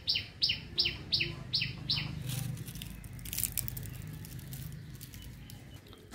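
A bird chirping a quick series of short falling notes, about three a second, that stop about two seconds in. Faint ticks follow.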